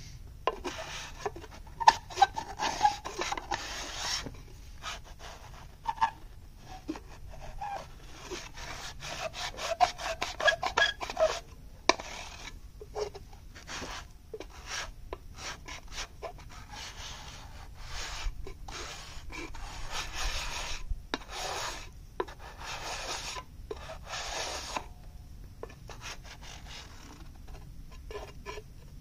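Hand tool scraping clay across a metal tray: runs of quick scraping strokes with short pauses between them, and a few sharp clicks.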